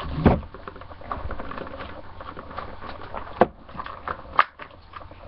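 Small clear plastic bag crinkling and rustling as it is handled and picked at, with a low bump near the start and a couple of sharp clicks later on.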